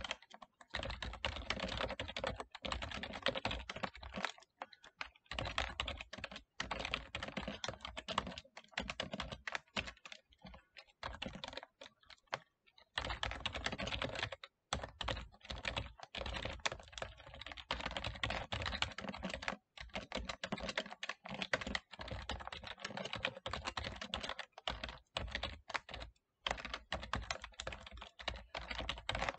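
Typing on a computer keyboard: runs of rapid keystrokes broken by short pauses.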